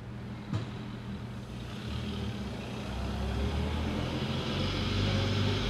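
Vintage car's engine running with a steady low note as the car rolls slowly forward, growing steadily louder, with a single sharp click about half a second in.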